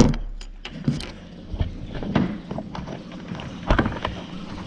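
Irregular knocks, taps and rubbing of a camera being handled and repositioned, the loudest knock right at the start.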